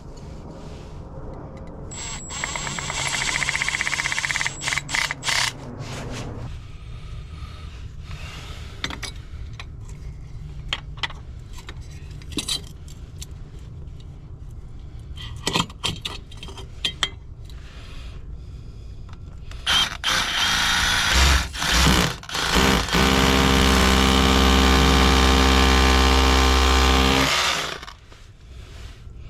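A cordless power drill run in short spurts, then held running steadily for about five seconds before stopping abruptly, with clicks and knocks of hand work in between.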